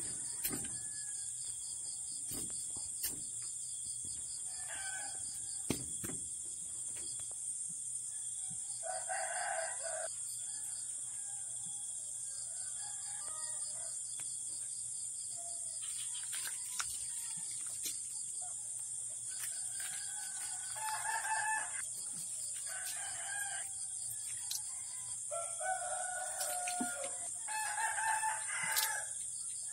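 Roosters crowing in the background several times, most often in the second half, with sharp clicks and knocks from ingredients and utensils going into a metal wok.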